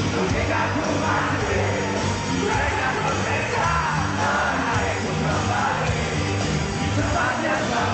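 Live rock band playing loud, with a singer yelling over the music.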